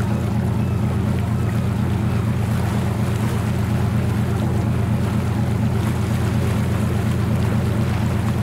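Engine of a small sightseeing boat running with a steady low drone, with some wash of water and wind over it.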